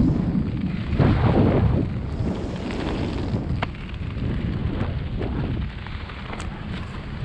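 Airflow buffeting the camera's microphone during a parachute descent: a steady, loud low rumbling rush with a few faint ticks.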